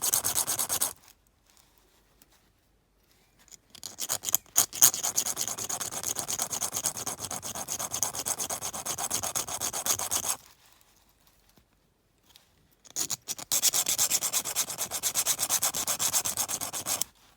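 A small metal washer being rubbed down by hand against an abrasive, in quick scraping strokes. The strokes come in three bouts, stopping about a second in and again around ten seconds in, and the work is meant to make the washer sit flush.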